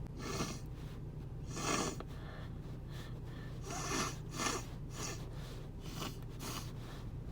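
A person with a congested head cold sniffing through a stuffed-up nose after a sneeze: a string of about eight short breathy sniffs, the strongest near 2 seconds and 4.5 seconds in.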